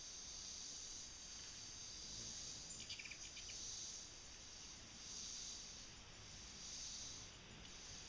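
Faint chorus of insects trilling steadily in the trees, swelling and fading in a slow, regular pulse. A brief burst of sharp chirps cuts in about three seconds in.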